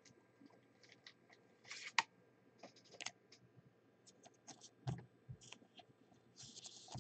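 Faint scattered clicks and rustles of a trading card being handled between the fingers, with a sharper click about two seconds in and a brief scraping hiss near the end.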